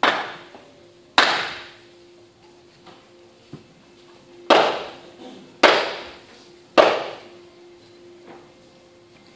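Five loud hammer blows at uneven intervals, each dying away in the hall's echo: the nails being driven in the staged crucifixion of Jesus.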